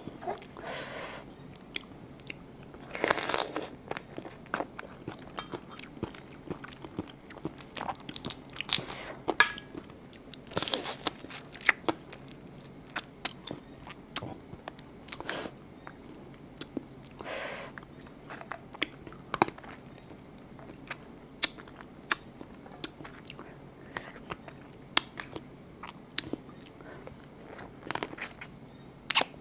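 Close-up eating sounds from a raw blue swimming crab salad: biting, crunching and chewing, with many sharp clicks and a few longer crunching bursts, the loudest about three seconds in.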